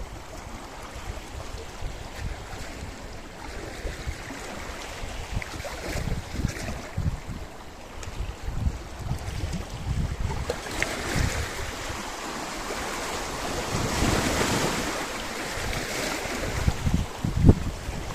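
Sea waves washing against a rocky shore, one wave surging and hissing over the rocks in the second half, louder around two-thirds of the way through. Wind buffets the microphone in low thumps throughout.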